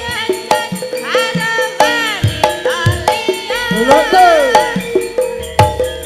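Javanese gamelan music with a voice singing a wavering melody over steady ringing metallophone tones and regular low drum strokes.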